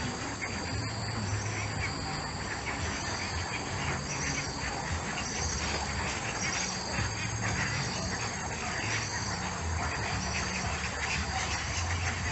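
Insects trilling steadily at a high pitch, with scattered animal calls over it.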